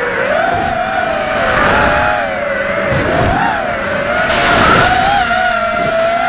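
ImpulseRC Alien 6 FPV quadcopter's brushless motors and propellers whining as it flies, the pitch rising and falling constantly with the throttle. Wind noise rushes over the onboard camera's microphone.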